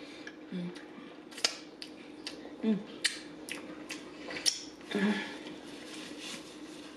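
Close-miked eating mouth sounds: wet lip smacks and sucking clicks as greasy fingers are licked clean, about eight sharp clicks spread through, then a paper napkin rustling briefly near the end.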